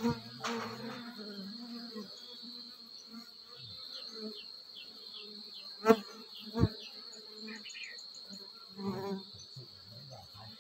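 Honeybees buzzing at the entrance of a nest in a hollow log, the hum swelling and fading as bees fly close, over a steady high-pitched insect drone. About six seconds in, two sharp knocks come less than a second apart.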